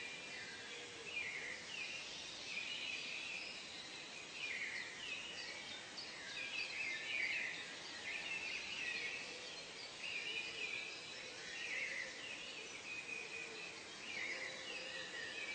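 Birds chirping and calling over a steady background hiss, short overlapping phrases following one another every second or so.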